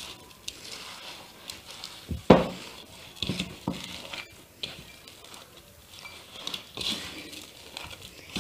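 Hands mixing crushed cornflakes into stiff cookie dough in a bowl: soft rustles and small clicks, with one louder knock about two seconds in.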